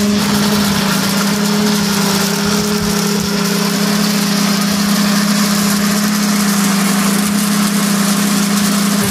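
Commercial double blender running steadily with both jugs blending falsa berries into juice: a constant motor hum under a loud whirring hiss.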